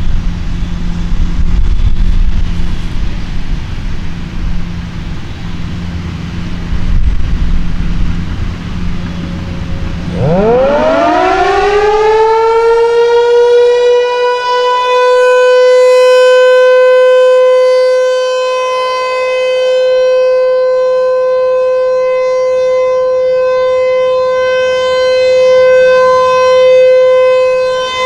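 Low rumbling background noise, then about ten seconds in an ASC T-128 Tornado outdoor warning siren winds up, its pitch climbing for two or three seconds and settling into a steady tone: the Alert signal. The tone swells and fades slowly as the rotating siren head sweeps around.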